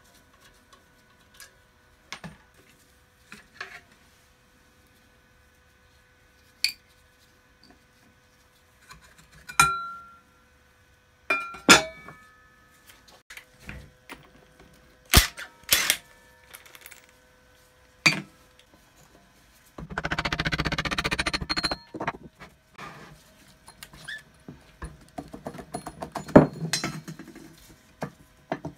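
Metal parts and tools clinking and knocking as a cast-metal bench grinder is taken apart by hand. About two-thirds of the way through, a cordless driver with a socket runs for about two seconds, undoing the grinding wheel's retaining nut.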